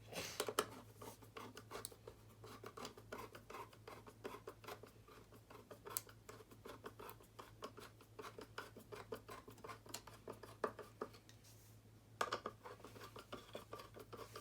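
Faint, irregular clicking and scratching of hands working electrical wire and small tools on a wiring board, with a louder burst of handling about twelve seconds in.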